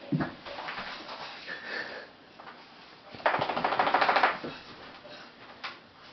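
A Basenji puppy scrambling onto newspaper: a knock and light scuffling, then about a second of loud paper rustling and crackling a little past the middle.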